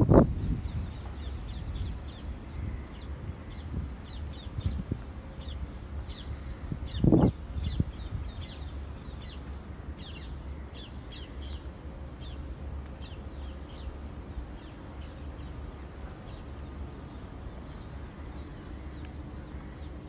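Birds calling with many short, high-pitched notes in quick clusters, thinning out after about fourteen seconds, over a steady low rumble. A single dull thump about seven seconds in.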